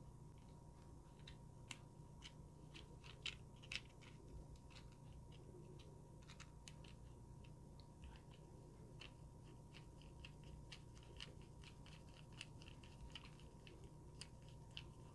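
Faint, scattered small clicks and ticks of a small screwdriver tightening the set screw on a banana plug while the plug and speaker wire are handled, with two slightly louder clicks a few seconds in, over a faint steady hum.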